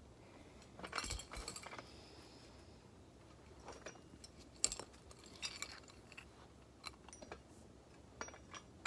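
Parts of a manual grain grinder clicking and clinking as they are handled and fitted together during assembly, with scattered small knocks. There is a cluster of clinks about a second in and a sharper knock just before the middle.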